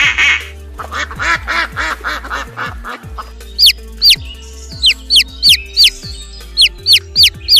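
Bird calls over background music: a quick run of about ten quacking calls, then a series of about a dozen short, sharp chirps, each sliding downward in pitch.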